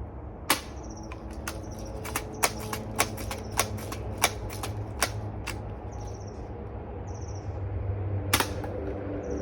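Daisy Powerline 35 multi-pump air rifle being worked by hand: a series of sharp mechanical clicks, roughly one every half second to second, with a louder click about half a second in and another near the end.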